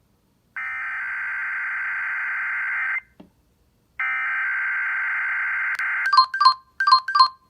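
Emergency Alert System SAME header data bursts: two long bursts of harsh, buzzing digital tone about two and a half and two seconds long, separated by a second of silence. Near the end they are followed by a run of short, rapidly pulsed beeps in pairs, signalling the start of a broadcast EAS test.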